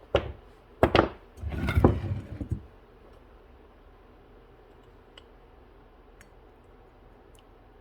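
Metal tool work on a small engine carburetor: a 10 mm socket wrench on the float bowl bolt gives two sharp clinks and a short rattle in the first few seconds. After that there are only a few faint ticks.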